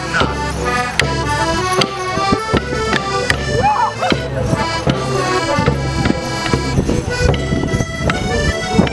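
Traditional border morris dance tune played on accordion, with sharp knocks sounding among the notes.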